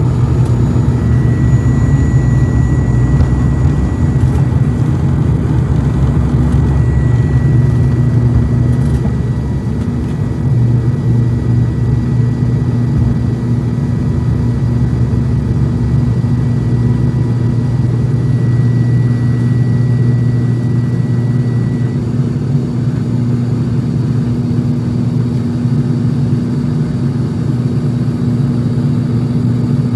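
Cabin noise of an ATR 72-600 turboprop at takeoff power: its Pratt & Whitney PW127M engines and six-blade propellers make a loud, steady low drone through the takeoff roll, liftoff and climb-out. A thin, high whine runs alongside and stops about two-thirds of the way through.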